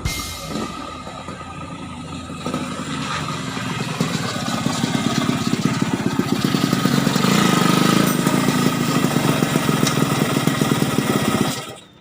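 Yamaha RX King's 135 cc single-cylinder two-stroke engine running, a rapid even stream of exhaust pulses that gets louder over the first few seconds and then holds steady. The sound cuts off abruptly near the end.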